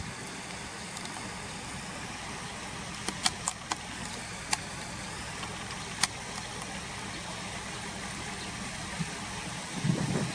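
Car engine idling steadily, heard from inside the cabin. A few sharp clicks come between about three and six seconds in, and louder, uneven low sounds start near the end.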